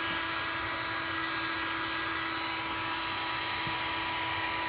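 Electric heat gun running steadily on its high setting: a constant blowing rush with a faint steady whine through it.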